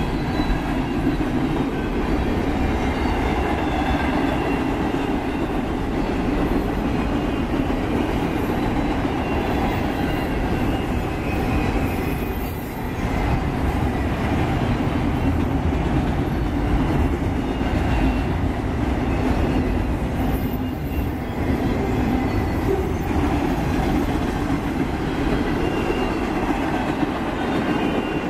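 Freight cars of a passing freight train rolling by at track side: a steady rumble and clatter of steel wheels on the rails, with faint high-pitched wheel tones above it.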